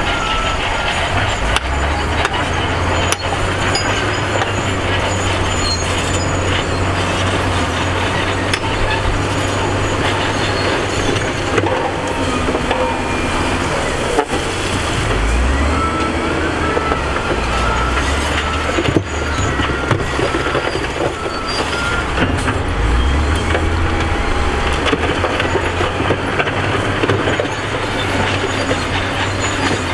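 SDLG wheel loader's diesel engine working under load as the bucket pushes dirt and rock, its note rising and falling, with knocks of stones. A high on-off beeping sounds in the background for a few seconds past the middle.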